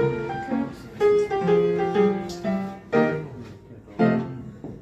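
Piano playing a song's introduction: chords struck about once a second, each left to ring and fade.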